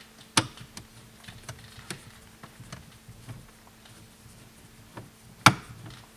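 Phillips screwdriver turning a screw out of a plastic dash panel: scattered faint ticks and scrapes, with a sharp click about half a second in and a louder one near the end.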